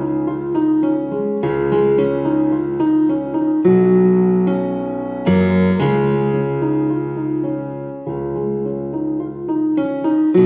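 Keyboard music with an electric piano sound: a repeating pattern of short notes over held chords, with lower chords coming in about four and five seconds in.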